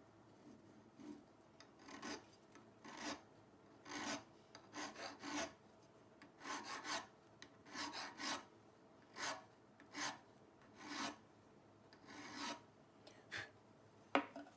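A small metal edge iron being abraded by hand to clean off rust: a series of short scraping strokes, about one or two a second and somewhat irregular.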